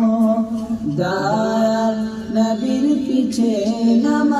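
Male voice singing a Bengali Islamic devotional song (naat), drawing out long melodic notes between the sung lines over a steady drone.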